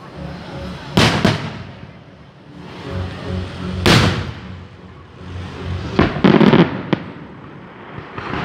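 Fireworks going off: a quick double bang about a second in, a single loud bang around four seconds, then a rapid cluster of bangs a couple of seconds later, each trailing off in a rumble. Music plays underneath.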